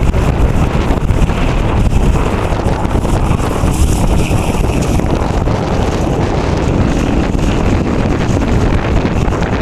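Wind buffeting the microphone in a steady rumble, over the distant drone of a Boeing-Stearman Model 75 biplane's radial engine in flight.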